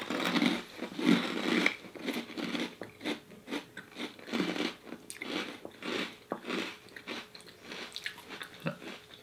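Two people biting into and chewing crunchy Lala fish crackers: a run of crisp crunches about twice a second, thinning out and getting quieter near the end as the crackers break down.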